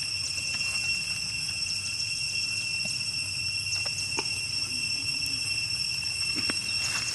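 A steady, high-pitched insect drone, unchanged throughout, over a low rumble, with a few faint clicks.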